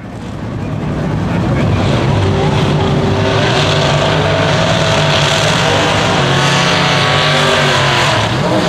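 Pro Mod drag racing cars' engines running loud and steady, fading in over the first second or two.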